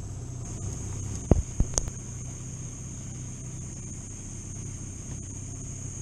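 A steady high trill of crickets over a low, even rumble, with three sharp knocks in quick succession about a second and a half in.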